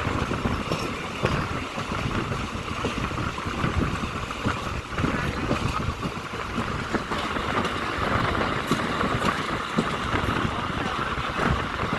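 Passenger train running: a steady rumble of the coach with irregular clatter of wheels on the track.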